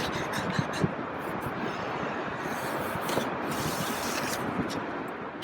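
Digging into wet beach sand after a razor clam: steady gritty scraping and rubbing, with a few sharper scrapes.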